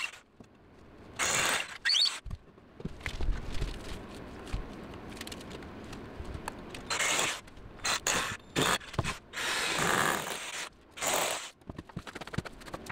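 Cordless drill driving screws into wooden framing studs in several short bursts, with clicks and knocks of handling between them.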